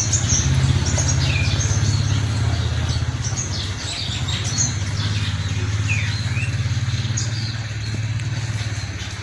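A steady low engine hum, like a vehicle idling, with small birds chirping now and then over it.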